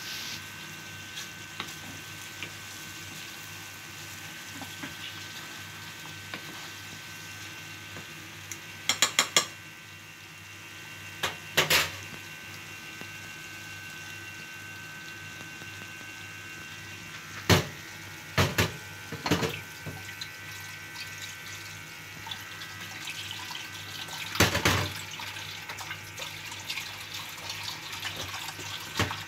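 Chicken curry simmering in a non-stick wok with a steady liquid hiss. A wooden spatula knocks and scrapes against the pan in short clusters: a quick run of four knocks about a third of the way in, more near the middle, and one near the end.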